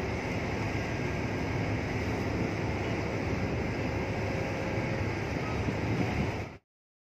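Steady low rumble of a harbour tugboat's engine working a towline, mixed with wind on the microphone and water noise; it cuts off suddenly to silence about six and a half seconds in.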